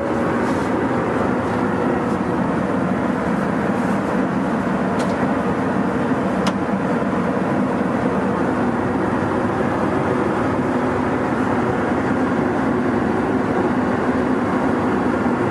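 Steady running noise of a moving passenger train, an even rushing sound with a faint low hum that holds unchanged, with a couple of faint clicks midway.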